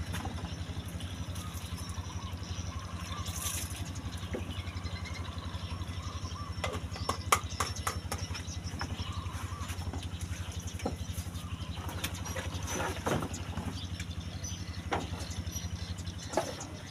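A small engine running steadily at idle, a low hum with a fast, even pulse. A few sharp clicks and rustles sound over it around the middle and near the end.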